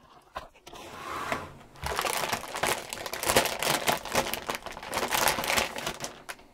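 Anti-static bag crinkling and crackling as a motherboard is slid out of it, starting about two seconds in after a few light taps.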